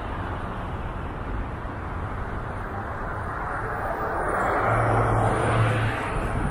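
Street traffic with a vehicle passing close by, swelling to its loudest about five seconds in with a low engine hum, then easing off.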